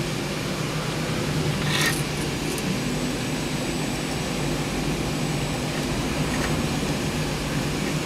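Steady fan hum, with a couple of brief clicks and rustles of small parts being handled about two seconds in.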